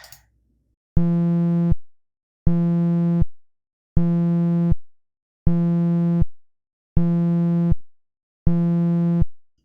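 Synthesized phone-vibration buzz from FL Studio's 3x OSC synth playing on loop: six low buzzing pulses, each a little under a second long, repeating about every one and a half seconds.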